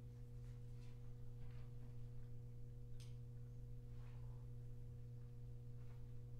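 Quiet pause in a small room: a steady low hum runs under a few faint, brief rustles and clicks, the sharpest about three seconds in.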